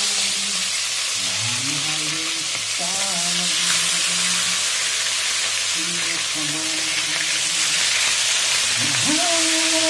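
Hot cooking oil sizzling steadily as whole dalagang bukid (redbelly yellowtail fusilier) fish are laid into the pan to fry, one after another.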